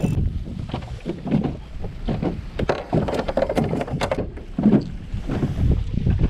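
Irregular clicks, knocks and rustles of fishing gear being handled in a small boat as a small fish is brought aboard on the line and taken off the hook, over a steady low wind rumble on the microphone.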